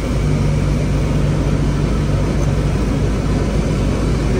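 Mahindra Scorpio's AC blower running, with air rushing from the dash vents over the idling engine. A steady hum comes in just after the start. The AC has just been recharged with gas and is blowing again.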